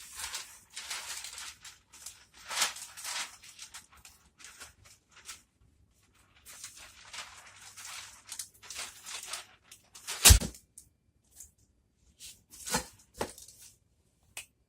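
Packaging being handled: irregular rustling and tearing noises, with a sharp knock about ten seconds in and two smaller knocks shortly after.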